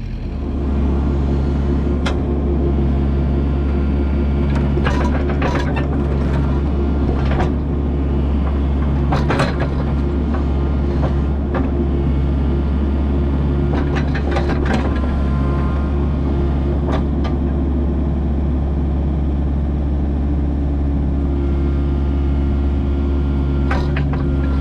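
Kubota U55-4 mini excavator's diesel engine running steadily under throttle, with a low hum that pulses about once a second. Sharp metallic clanks and knocks come at scattered moments, several in the first half and a pair near the end.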